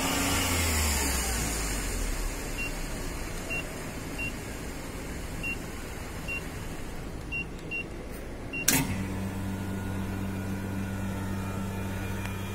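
Automotive AC recovery and recharge machine: a series of short keypad beeps as its menu buttons are pressed to select vacuum. About nine seconds in, a click and then a steady low hum as the machine's vacuum pump starts evacuating the AC system.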